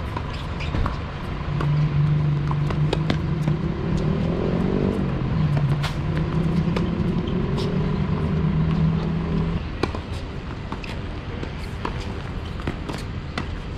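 A motor vehicle's engine runs as a low, steady hum. It starts about a second and a half in and cuts off after about eight seconds. Sharp pops of tennis balls struck by racquets and bouncing on the court come throughout.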